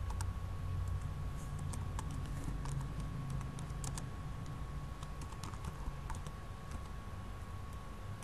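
Typing on a computer keyboard: a run of quick, uneven keystroke clicks, thinning out in the last couple of seconds, over a low steady hum.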